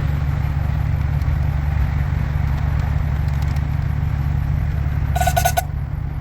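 Car engine idling with a steady low rumble. A short pitched tone sounds about five seconds in.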